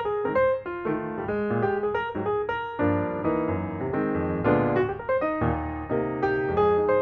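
Outro music on piano or electric piano: quick notes and chords, with a fuller, denser accompaniment entering about three seconds in.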